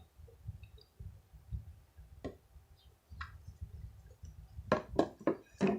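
Scattered light clicks and taps of supplies being handled on a table, a few spread out and then a quick run of them near the end, over a faint low rumble.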